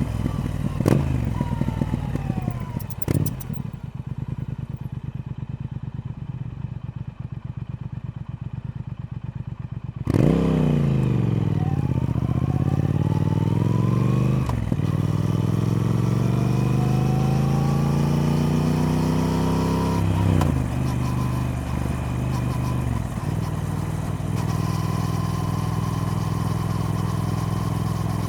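Triumph Speed Twin parallel-twin engine on a closed throttle, throbbing at low revs, then opening up sharply about ten seconds in and climbing in pitch through several gear changes before settling into a steady cruise.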